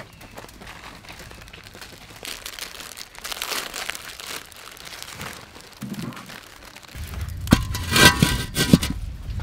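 Plastic instant-noodle packets crinkling and tearing as they are opened by hand. About seven seconds in, a few loud metallic clanks with ringing from a steel wok on the stove.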